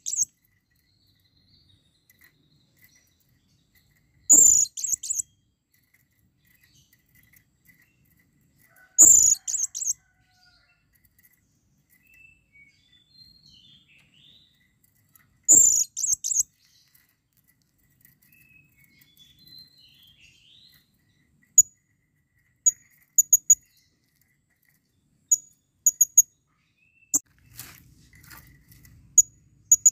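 Blue-crowned hanging parrot (serindit) calling: loud, very high, shrill chirp bursts about every five seconds, then short sharp tweets in ones, twos and threes from about two-thirds of the way in. This is the excited breeding call a male gives to attract a female.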